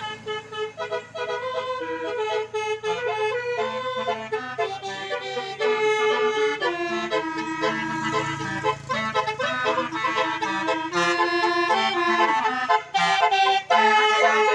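Basuri musical horn on a tour bus playing a melody, a string of held notes stepping up and down in pitch with a reedy, accordion-like tone.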